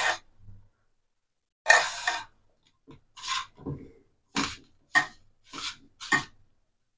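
A hand rubbing and scraping moistened aval (flattened rice) puttu flour against a non-stick pan, in a run of short scratchy strokes after a pause of about a second.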